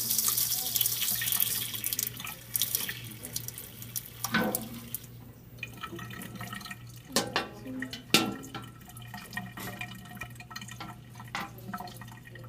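Water running from a tap onto a tilted baking sheet, loud at first and dying away after about four seconds, followed by scattered drips and small knocks.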